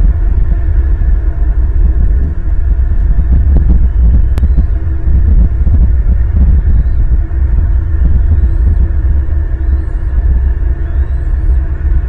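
Loud, steady low rumble of outdoor background noise on the nest camera's microphone. Faint crackling and a sharp click come about three to five seconds in as the bald eagle tears at its prey. Faint high bird chirps repeat in the second half.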